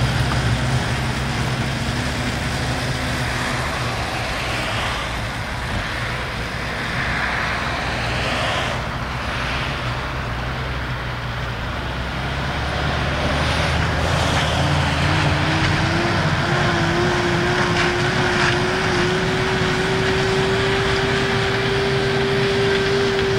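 New Holland tractor engine running under load, pulling a Bergmann manure spreader that is throwing out muck. About fifteen seconds in a steady whine comes in, rising slightly in pitch and then holding.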